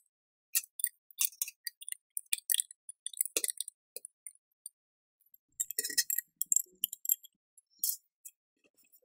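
Wheel nuts being spun onto the studs of an alloy car wheel and tightened with an open-end spanner: a scatter of short metallic clinks and clicks.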